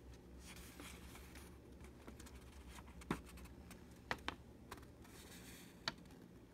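Faint handling of a paper instruction sheet: light rustling with a few short ticks around the middle and near the end, over a quiet room hush.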